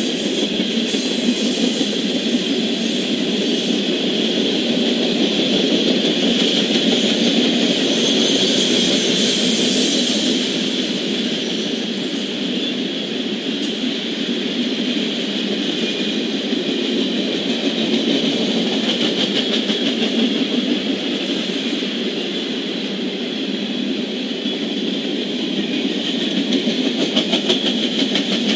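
Freight train's tank cars and covered hoppers rolling past on the rails: a steady rumble and rattle of steel wheels, with faint rapid clicking at times.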